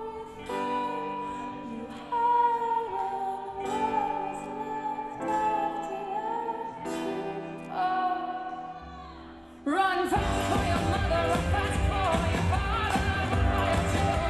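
A recorded song plays: a singer holds long notes over sustained chords in short phrases. About ten seconds in, drums and a full band come in suddenly and much louder.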